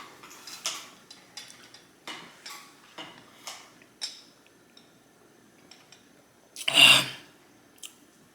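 Close-miked eating: wet chewing and mouth clicks, several short smacks in the first few seconds, then quieter. A short, loud, noisy rush about seven seconds in stands out above the chewing.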